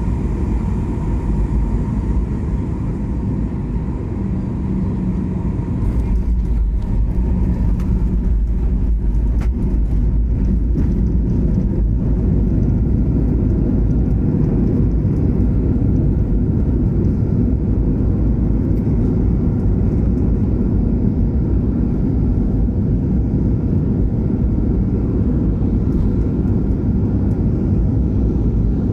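Airliner cabin noise heard from inside the cabin: a steady low rumble of jet engines and airflow. About six seconds in come a few seconds of short knocks and rattles, after which the rumble runs slightly louder and even.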